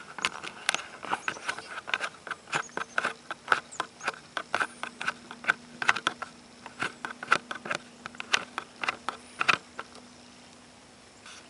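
A rapid, irregular series of sharp clicks, several a second, that stops near the end, with a faint, low, steady hum coming in about halfway through.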